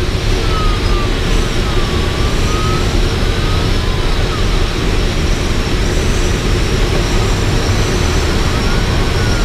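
Steady rush of airflow over the canopy inside an ASK 13 glider's cockpit at about 60 knots, with a faint high whistle that slowly rises and falls in pitch.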